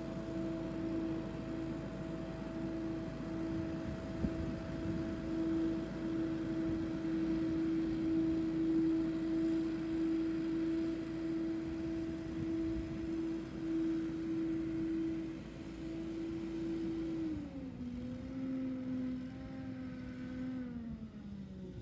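Billy Goat P2000 stand-on leaf blower running hard, a steady whine over a broad rush of engine and air. Near the end its pitch drops in two steps.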